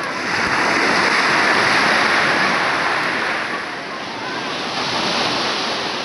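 Small waves breaking and washing up a pebble beach: a steady rushing surf that swells over the first few seconds, eases about two-thirds through and builds again. Faint voices of bathers are heard underneath.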